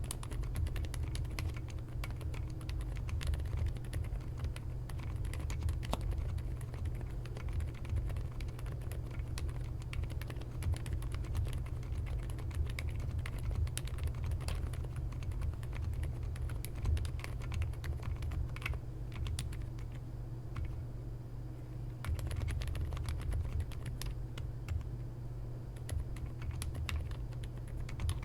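Continuous typing on an Epomaker x Feker Galaxy mechanical keyboard with unmodded Outemu Silent Peach V2 silent linear switches and basic keycaps: rapid, irregular, dampened key presses.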